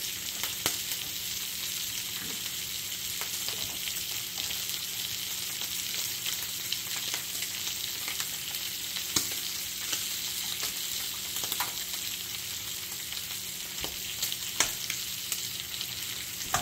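Smoked bacon frying in a pan: a steady sizzle, with a few sharp clicks over it.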